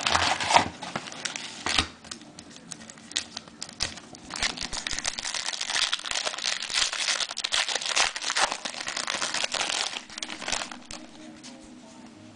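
A foil trading-card pack wrapper being torn open and crinkled by hand: sharp crackling bursts in the first two seconds, then a long stretch of crinkling from about four to ten seconds in.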